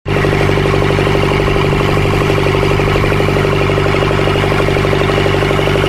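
The stern-mounted motor of a small wooden riverboat running steadily under way: a constant, even engine note with a fast regular pulse.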